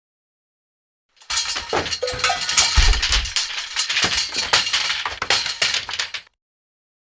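Metal objects falling and clattering: starting about a second in, a dense run of clanks and clinks for about five seconds, with one heavy low thud about three seconds in.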